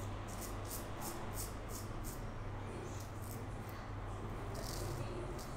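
Safety razor with a Wizamet Super Iridium blade scraping stubble through lather in quick short strokes, about three or four a second, with one longer stroke near the end.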